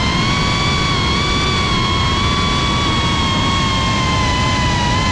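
GEPRC Cinelog35 FPV cinewhoop's motors and propellers whining at a steady high pitch that wavers slightly, over a steady rushing noise.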